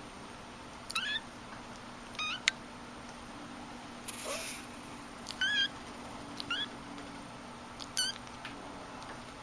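A cat mewing: five short, high-pitched mews spaced a second or more apart. There is a sharp click about two and a half seconds in and a brief hiss just after four seconds.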